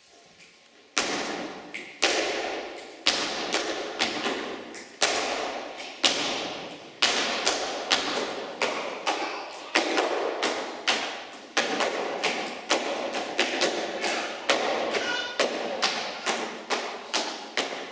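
A folk dancer's boots stamping on the stage floor. The stamps start about a second in, roughly one a second at first, then come quicker at two or three a second, each one echoing briefly in the hall.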